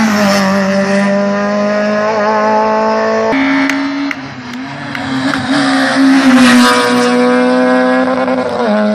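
Rally car engines at high revs as the cars race past on a road stage: one car goes by close at the start, then a second approaches and passes, loudest a little past the middle, its engine note falling away near the end.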